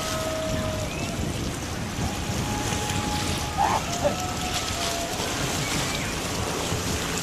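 Wind rumbling on the microphone over the sound of water as a large cruise ship sails past close by. A few faint short notes and a brief wavering blip a little before the middle rise above the noise.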